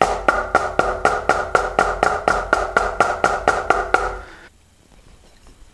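Drumsticks tapping a drum in a steady, even stream of single strokes, about five a second, in eighth notes; the playing stops about four seconds in.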